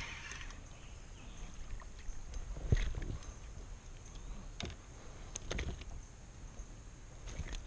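A fishing kayak being handled and paddled on calm water: a few short knocks against the plastic hull and paddle, the sharpest about three seconds in.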